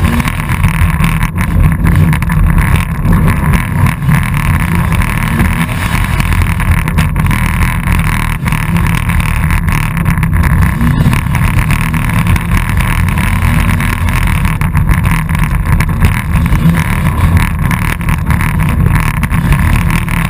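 Race car engine running loud and steady, heard from inside the stripped cab while driving over rough dirt, with scattered knocks and rattles from the body.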